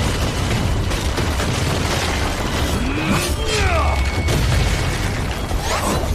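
Animated battle sound effects: a continuous loud rumble with booms, and several sweeping whooshes about three to four seconds in and again near the end.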